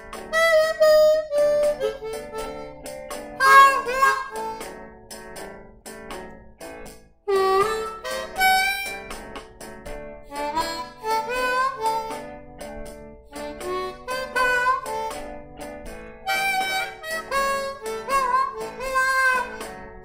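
Harmonica, cupped in both hands, played in blues phrases of separate notes, some bent in pitch, with a short pause about seven seconds in.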